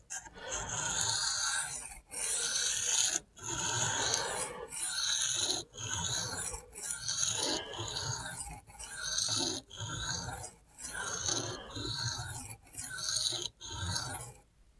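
Spyderco Shaman's Cruwear steel blade scraped back and forth across a wet low-grit sharpening stone in freehand strokes, about one stroke a second, grinding the bevel at low grit.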